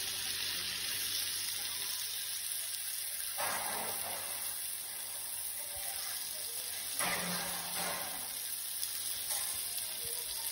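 Marinated pomfret sizzling steadily in oil in a hot grill pan, with two brief louder swells of sizzle about a third and two-thirds of the way through.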